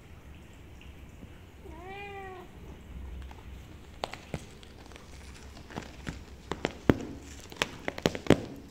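A cat gives one short meow that rises and falls, about two seconds in. A run of sharp taps and knocks follows in the second half.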